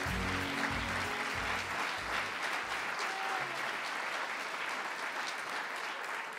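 Large audience applauding, with music under the clapping that fades out about three seconds in.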